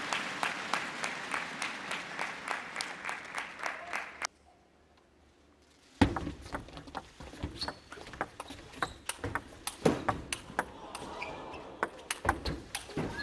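Table tennis rally: the ball clicking off the bats and table in quick, sharp knocks over hall crowd noise. The sound drops out for a couple of seconds near the middle, then the knocks resume.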